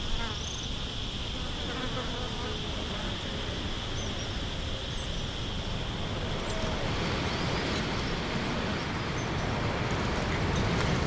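Insects buzzing, with a high, steady insect drone that fades after the first few seconds, over a constant low rumble.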